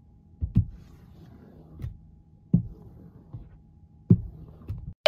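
Gas-station window squeegee scrubbing a car's side window and mirror, heard from inside the car: several irregular dull knocks as the squeegee head bumps the glass, with faint wiping between them.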